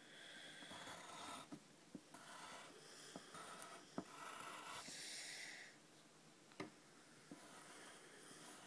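Faint pencil strokes scratching across paper as lines are drawn, a few strokes each lasting about a second, with some light ticks of the pencil against the page.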